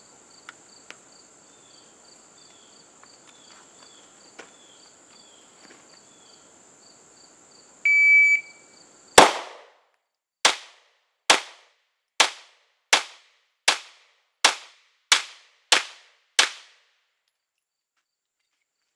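Insects chirring steadily, then a shot timer's beep lasting about a second, followed after a short pause by ten shots from a 9mm Glock 19 Gen 5 pistol fired at an even rapid pace over about seven seconds.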